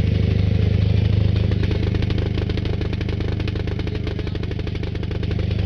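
Single-cylinder diesel generator engine running steadily, with a fast even diesel knock over a low hum; it dips a little in loudness in the middle and comes back up near the end.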